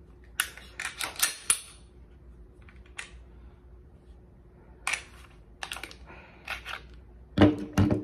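Clicks and clacks of a Glock 19X pistol being field-stripped: the polymer frame and metal slide knocking and snapping as the slide is worked and pulled off the frame. The clicks come in irregular clusters, with the loudest clack near the end.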